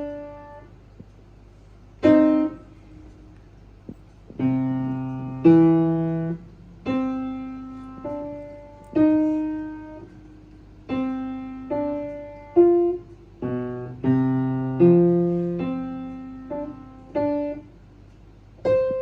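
Piano playing a slow melody of single notes. Each note is struck and left to ring and fade, and a few notes have low bass notes played under them, near the middle and again later.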